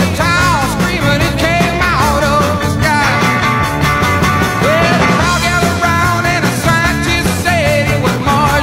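Background music with a steady beat and a lead melody that slides up and down in pitch.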